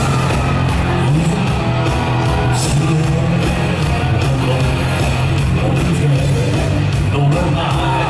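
Live Cantopop concert music over a large hall's PA: an upbeat dance track with a steady drum beat and heavy bass, a man singing into a handheld microphone, and fans yelling along.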